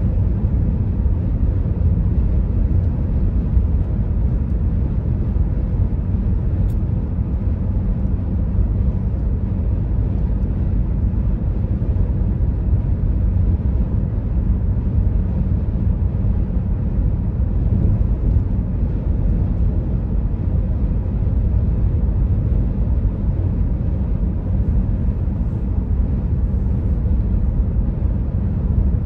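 Steady road and engine drone heard inside a car's cabin while cruising on a highway, a low even rumble with no change in pitch or loudness.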